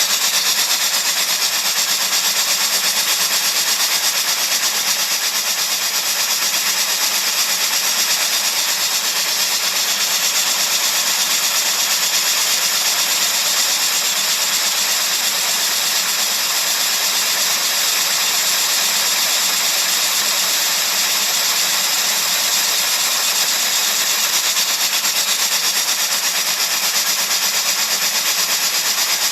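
Steady, high-pitched hissing noise with almost no bass: a white-noise track for tinnitus masking.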